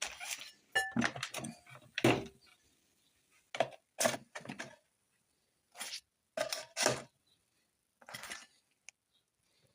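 Camping cookware and utensils clinking and knocking together as they are handled and packed away: a dozen or so irregular knocks, a couple with a brief metallic ring, with short pauses between.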